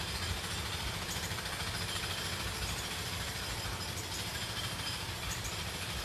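Steady outdoor background noise: a low rumble with an even hiss over it.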